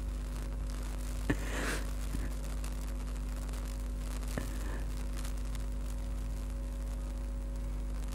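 Steady low electrical hum, with a couple of faint clicks and a brief soft rustle.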